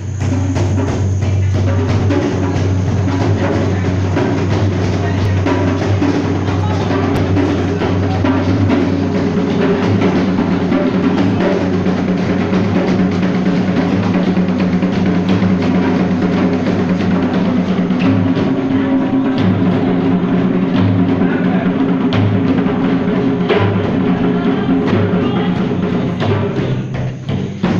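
Loud dance music with a steady drum beat and a strong bass line, dipping briefly near the end.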